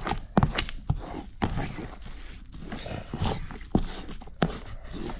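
Molassed chaff being stirred in a rubber feed bucket with a plastic stirrer: dry rustling and crunching, with repeated sharp knocks and scrapes of the stirrer against the bucket.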